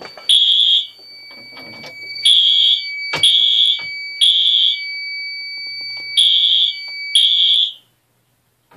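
Home fire alarm system sounding its evacuation signal, the temporal-three pattern of three short blasts and then a pause, repeated and really loud. A steady high tone sounds alongside from about two seconds in, and everything cuts off abruptly shortly before the end.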